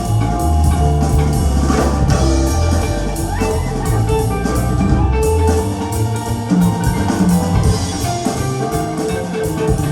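Music with a steady beat and strong, deep bass, played back through a pair of KEF LS50 Meta bookshelf speakers with dual subwoofers.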